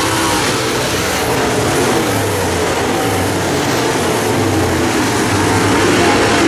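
Several dirt modified race cars' V8 engines running hard together in a loud, steady mix, their pitches wavering up and down as the cars circle the track.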